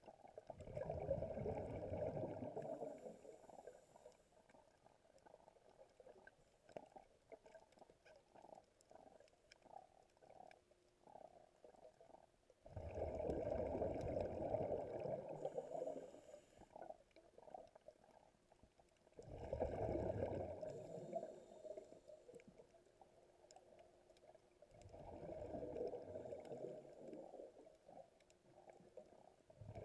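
Scuba diver's exhaled bubbles rumbling out of the regulator underwater, in four bursts several seconds apart, with faint crackling between breaths.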